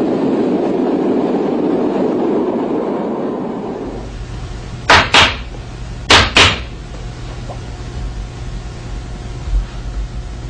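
A steady noise that cuts off about four seconds in, leaving a low hum. Over the hum come two pairs of sharp knocks, the pairs about a second apart.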